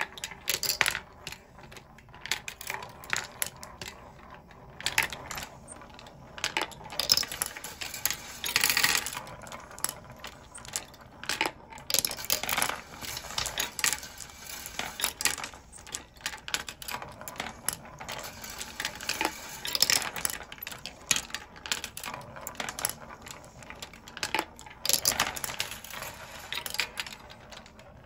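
17 mm glass marbles rolling and dropping through a wooden marble machine's bent-wire tracks and wooden chutes: an irregular run of sharp clicks and clinks, with a longer rattling run now and then.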